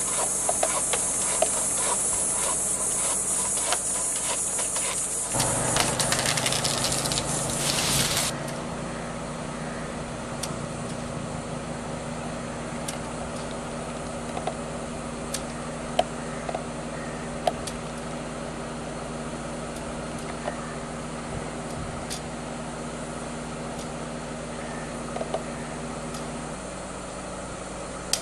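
High insect shrilling with a few sharp clicks until about eight seconds in, then a steady low engine hum like a car engine idling, with occasional sharp clicks.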